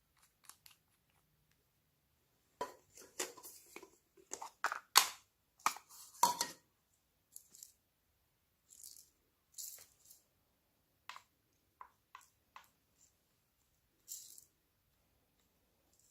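Hands working a sticky slime, with short wet clicks and pops. A dense flurry comes a few seconds in, then scattered single ones.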